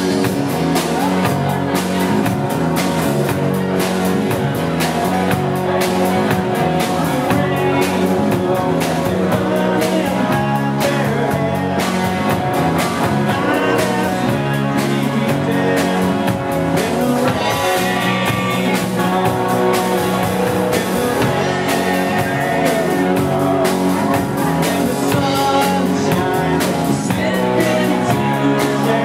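A live rock band playing a song: a man singing over strummed acoustic guitar, a second guitar and a drum kit keeping a steady beat.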